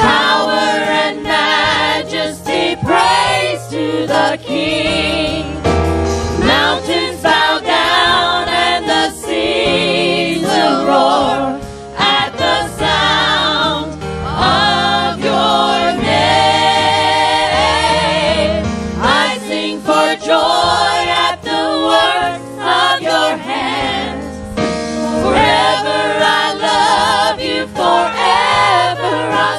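Church worship singing: a choir and vocalists singing a gospel praise song with musical accompaniment, voices held with vibrato over steady low notes.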